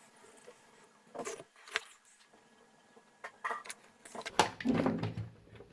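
Scattered clicks and knocks of tools and a circuit board being handled on a workbench, becoming a louder clatter near the end, when a low hum also comes in.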